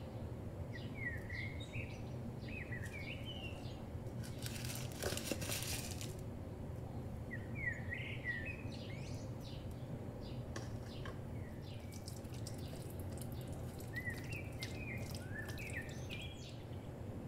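A small bird chirping in short runs of quick chirps, three times, over a steady low hum. A brief rustle lasting about two seconds comes about four seconds in, and light clicks are scattered through the later part.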